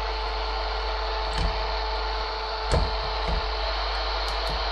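Steady static hiss with a low hum from an Icom handheld receiver tuned to 10.240 MHz, with a few soft handling knocks. No carrier comes through: the sign that the Kenwood TR-751's 10.24 MHz crystal oscillator is not running.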